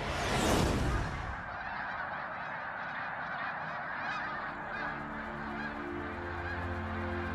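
A flock of geese honking, many calls overlapping, after a brief whoosh in the first second. Soft trailer music comes in about halfway through, with a low note near the end.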